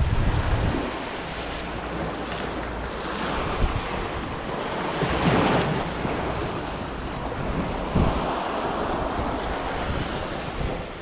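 Sea surf washing onto a sandy beach, swelling and easing, with wind rumbling on the microphone.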